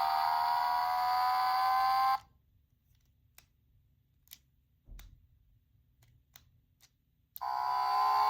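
Gachapon sound-effect toy playing a recorded electronic sound through its small speaker: a steady, buzzy tone slowly rising in pitch. It cuts off abruptly about two seconds in, a few small clicks and a soft thump follow, and the same sound starts again near the end.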